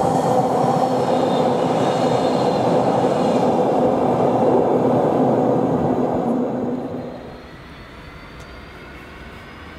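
Diesel locomotive engine running hard under power as a train passes, a loud steady note that falls away sharply about seven seconds in, leaving a quieter rumble with a faint rising whine.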